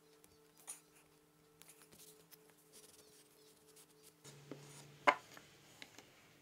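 Faint scratchy rubbing of sandpaper on a small piece of wood, with light ticks. About five seconds in there is a single sharp tap.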